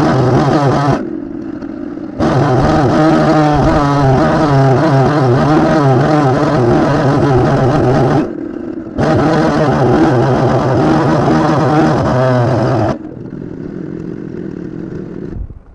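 Husqvarna chainsaw on a chainsaw sawmill running at full throttle through a cut. The throttle eases off briefly twice. It drops to idle about 13 seconds in and then shuts off near the end.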